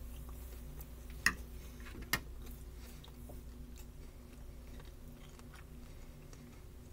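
A metal fork clinks sharply twice against a plate, about a second apart, followed by faint soft chewing of a breaded baked pork chop.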